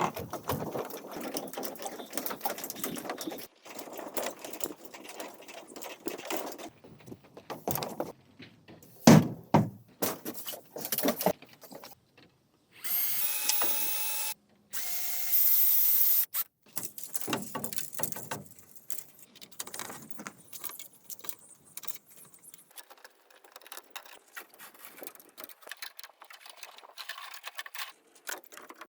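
A handheld power tool runs in two short bursts, about a second and a half and then about a second, with a steady motor whine. Irregular knocks and clatter of handling work come before and after the bursts.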